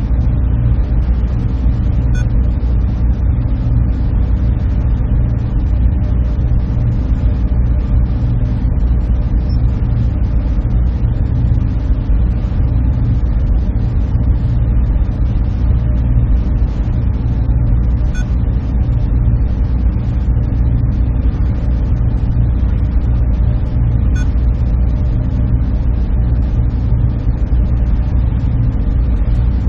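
Steady low hum and rush of a server room's machines and cooling, with a few faint ticks.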